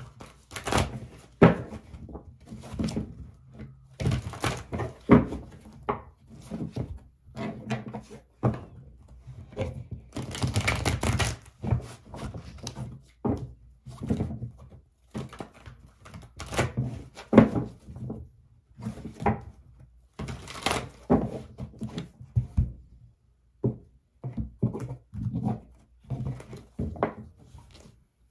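A tarot deck being shuffled by hand: the cards slap and tap together in irregular knocks and short rustling runs, with a longer run of shuffling about ten seconds in.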